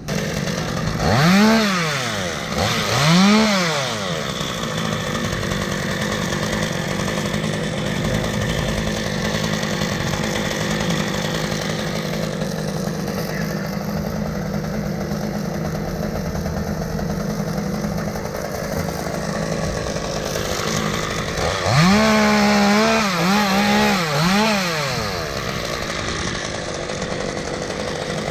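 Gas chainsaw engine revved up and down twice near the start, running steadily, then revved several times in quick succession about 22 seconds in.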